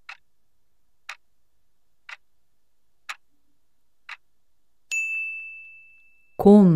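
Quiz countdown timer sound effect: five clock-like ticks one second apart, then a single ding that rings out for about a second and a half as the five-second answer time runs out.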